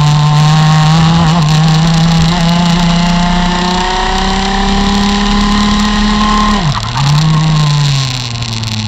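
Rotax MAX FR125 125 cc single-cylinder two-stroke kart engine at full throttle, its pitch climbing steadily as the revs rise down a straight. About two-thirds through the revs drop suddenly, pick up briefly, then fall away as the kart slows.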